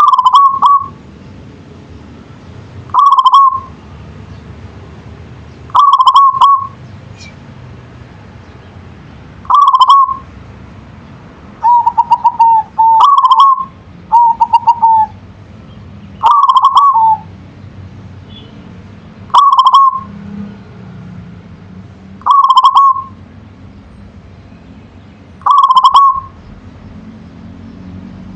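Zebra dove (perkutut) cooing: a short rolling coo repeated about every three seconds, with two longer, rapidly trilled coos in the middle. A steady low hum runs underneath.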